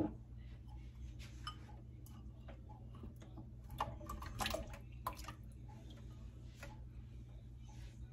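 Potatoes tipped from a bowl into a stainless steel pot of water: a few quiet splashes and knocks about four to five seconds in, over a faint low hum.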